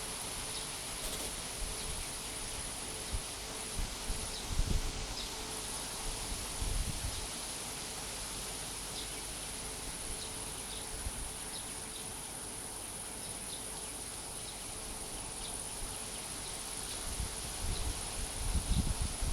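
Wind blowing through leaves and gusting on a phone's microphone, with low rumbles about four to seven seconds in and again near the end. A steady high-pitched drone of insects runs underneath.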